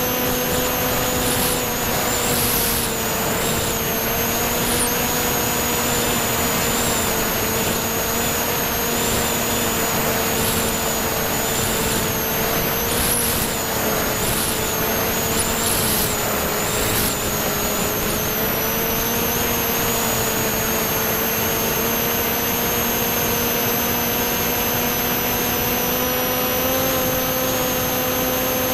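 Brushless electric motor and propeller of a C1 Chaser FPV plane, heard from its onboard camera: a steady motor whine with slight changes in pitch, with a few short gusts of wind hiss.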